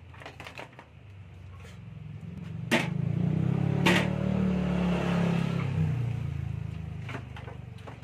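Cordless drill-driver running for about four seconds from roughly two seconds in, working a screw out of a microwave oven's sheet-metal chassis, with two sharp knocks about three and four seconds in.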